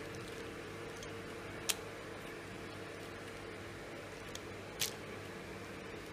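Aluminium foil crackling in two brief sharp clicks, about a second and a half and nearly five seconds in, as cut pieces of rolled wheat dough are peeled off it, over a steady low hum.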